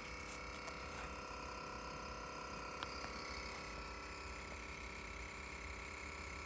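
Atari SF354 3.5-inch floppy disk drive running with a faint, steady high whine over a low hum, and a few small clicks, one about three seconds in.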